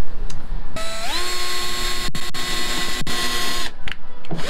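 Cordless drill spinning up with a rising whine, then running steadily as it bores a hole through the plywood bow of the hull for a painter's bow hook. It stops, then starts again briefly near the end.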